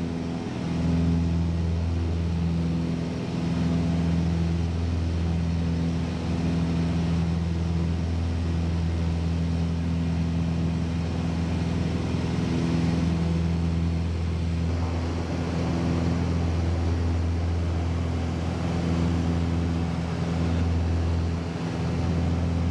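Steady drone of a light aircraft's engine heard from inside the cabin: a strong low hum with a few steady tones above it, holding an even level.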